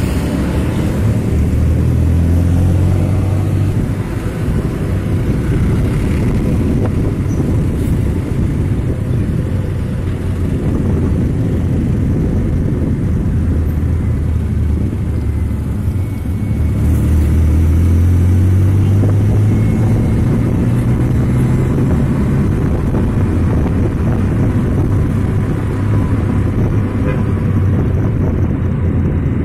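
Truck engine running with a low, steady rumble amid road traffic, swelling and rising a little in pitch about seventeen seconds in.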